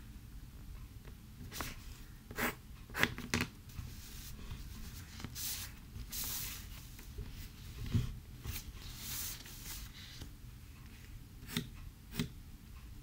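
Pencil drawing on paper, scratching in short strokes. In the middle the sheet rubs and slides as it is turned on the tabletop, and there are a few light knocks and taps.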